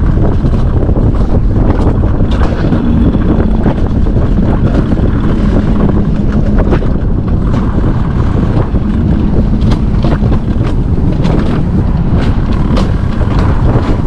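Alpine coaster sled running down its steel rail track: wind rushing over the microphone over a steady rumble of the wheels on the rails, with frequent sharp clicks and rattles.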